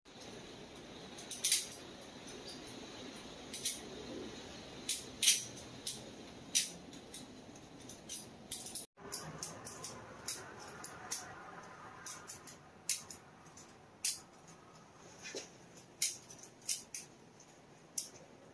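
Irregular small sharp clicks and light taps over a faint steady hiss, from hard objects being handled.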